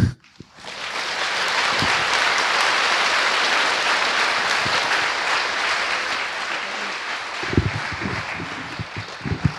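Audience applauding, swelling up within the first second and slowly dying away over the last few seconds.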